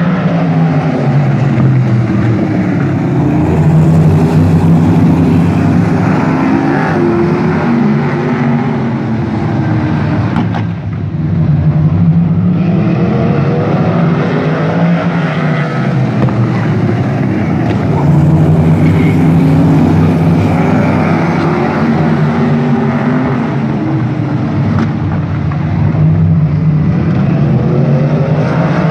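A pack of sprint car engines racing around a paved oval, several cars at once, their pitch rising and falling in waves as the field goes by, with a short lull about eleven seconds in.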